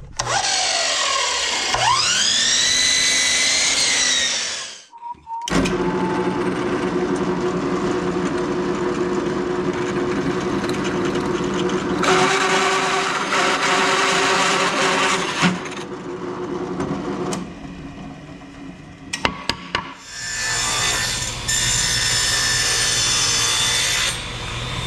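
Power tools running in several separate runs while a bending jig is made from wood and metal: a motor spins up and winds down in the first few seconds, then long steady stretches of cutting or drilling.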